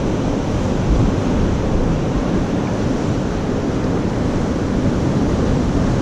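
Steady low rush of churning, foam-covered river water below a concrete wall, with wind buffeting the microphone.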